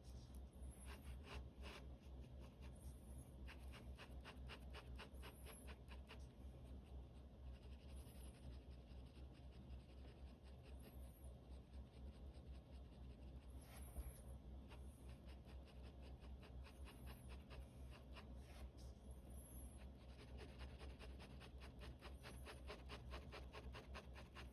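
Faint scratching of a pen on sketchbook paper: quick, repeated hatching strokes, over a steady low hum.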